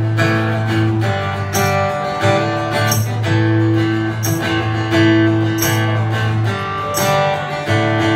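Acoustic guitar strummed in a steady rhythm, playing a song's instrumental intro.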